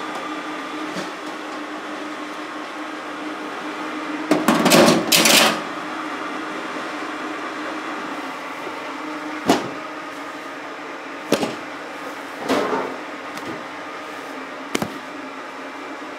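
Machinery on a curry roux production line running with a steady hum. A louder clatter comes about five seconds in, followed by a few single clanks.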